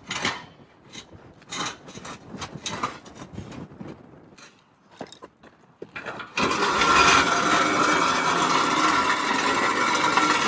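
Metal tools clinking and knocking irregularly, then a pneumatic impact wrench runs steadily for about four seconds near the end and stops abruptly.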